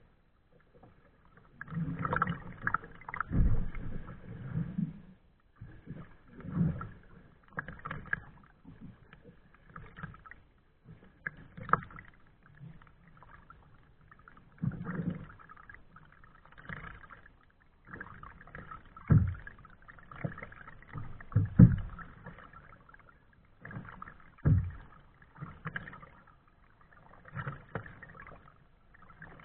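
Kayak paddle strokes in the water, an irregular series of short splashes and swishes every second or two, with a few sharper low thumps among them.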